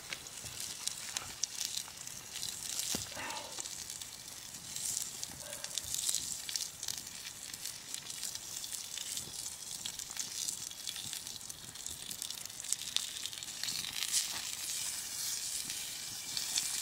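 Pork jowl (tontoro) sizzling in a small pan held over an open campfire: a steady frying hiss with many small crackles from the fat and the flames.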